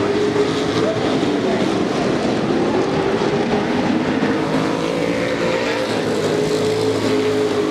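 Several Super Pro Truck race trucks' engines running hard together in a close pack, their overlapping engine notes rising and falling slightly as they race past.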